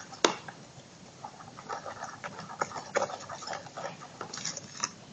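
A sticky slime mixture being stirred in a bowl: irregular small wet clicks and taps, with a sharper click just after the start. The mixture has not yet set.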